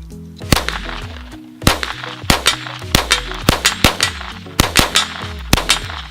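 Ruger Mark III .22 LR semi-automatic pistol firing a rapid string of shots, many in quick double taps. Background music plays underneath.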